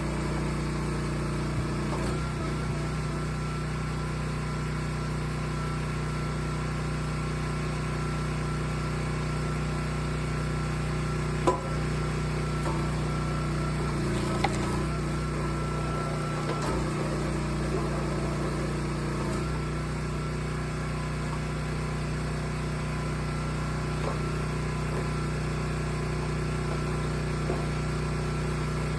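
Log splitter's motor running with a steady hum, with two sharp knocks a few seconds apart about midway.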